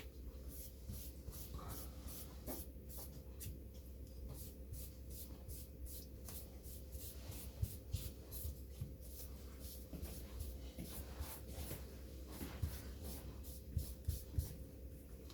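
Paper rubbed over a phone's display in quick repeated wiping strokes, a few a second, cleaning the screen before new glass is laminated on, with a few sharper knocks near the end.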